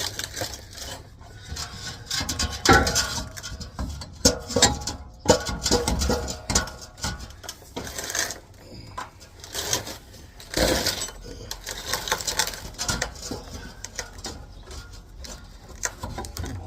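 Irregular metallic clanks and knocks as a steel muffler-and-tailpipe assembly is worked up over the rear axle and into place under a pickup truck, the pipe bumping against the frame and suspension.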